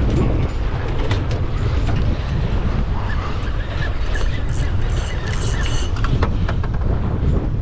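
Wind buffeting the microphone over the low, steady rumble of a boat out on open sea, with scattered faint ticks and splashes.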